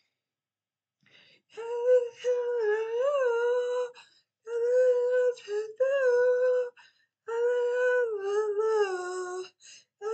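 A single high voice singing wordless long held notes with small slides in pitch. It comes in phrases of one to three seconds, starting about a second and a half in, with abrupt silences between them.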